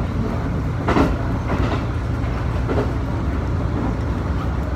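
Diesel railcar running at speed, heard from inside the passenger car: a steady low rumble of engine and wheels on the track, with a few clacks of the wheels over rail joints, the strongest about a second in.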